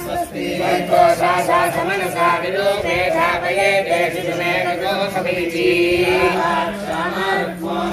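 A group of male voices chanting Vedic mantras together in a steady, sung recitation with some held notes.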